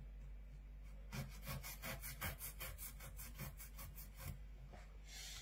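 A knife sawing back and forth through a dogfish's rough skin, which is like cutting through sandpaper, to cut off the fins. It makes a run of quick rasping strokes, about five a second, starting about a second in and stopping after about four seconds, with one fainter stroke near the end.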